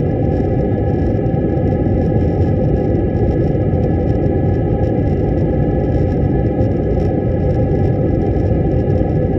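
Jet airliner cabin noise on descent: the steady rush of engine and airflow heard through the cabin wall at the window seat, with a faint steady high whine over it.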